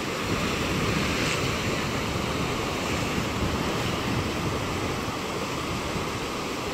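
Small waves washing up a sandy beach in a steady rush of surf, with wind buffeting the microphone.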